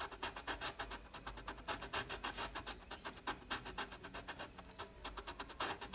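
Colored pencil scratching on paper in quick, repeated back-and-forth shading strokes, several a second.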